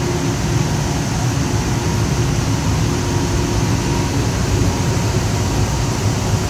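Steady mechanical roar with a faint low hum from a fired maple sap evaporator boiling sap down to syrup.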